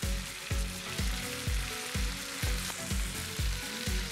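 Flour-dredged sand smelt deep-frying in hot sunflower oil, a steady sizzle of bubbling oil. Under it runs background music with a steady beat, about two beats a second.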